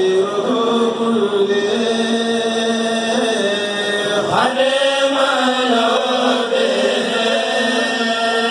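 A kourel of men chanting Mouride religious poems (khassaïdes) through a sound system, one voice line holding long notes and sliding between pitches without pause.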